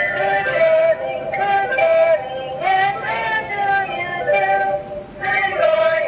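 GL2363E toy robot singing a song through its built-in speaker, a recorded voice moving through a melody with held notes.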